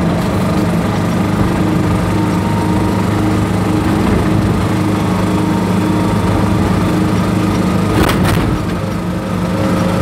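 Small Kubota diesel engine of an Aixam Mega Multitruck microvan running under way, loud and close, with a steady drone. A short knock comes about eight seconds in.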